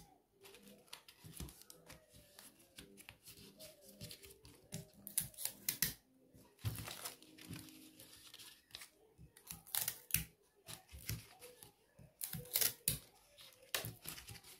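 Quiet rustling of dress fabric being handled, with scattered irregular clicks and taps.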